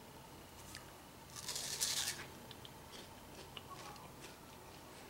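A crunchy bite into a raw pear about a second and a half in, followed by a few small clicks of chewing.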